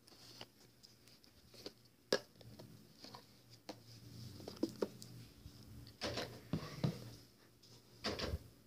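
Scattered small clicks and taps of things being handled, with one sharp click about two seconds in and louder bursts of handling noise near six and eight seconds.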